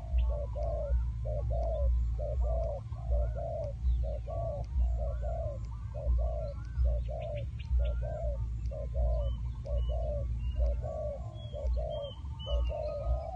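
Decoy dove cooing to lure wild doves, in a steady run of short coos at about two a second. Small birds chirp faintly above it, over a steady low rumble.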